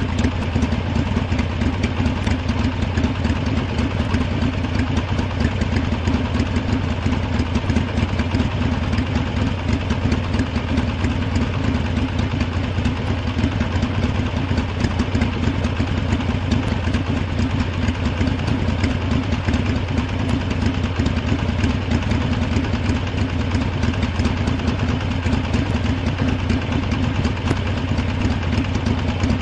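Harley-Davidson motorcycle's V-twin engine idling steadily, its speed unchanging.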